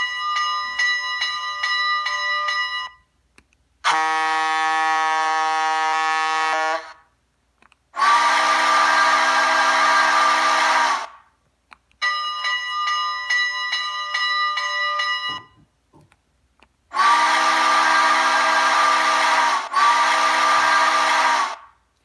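Recorded steam locomotive whistles played back through a small dual sugar cube speaker, driven by an Adafruit Audio FX soundboard and 2.5 W amp. There are five separate whistle blasts of about three to five seconds each, in different whistle voices picked at random, and the last blast is broken into two toots.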